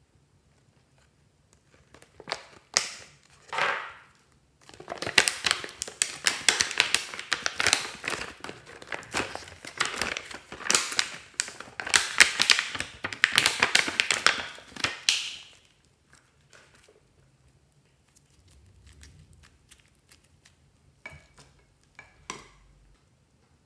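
Thin clear plastic blister packaging crinkling and crackling as it is squeezed by hand and purple modelling clay is pressed out of it, a dense run of sharp crackles that stops about two-thirds of the way through. A few faint taps follow near the end.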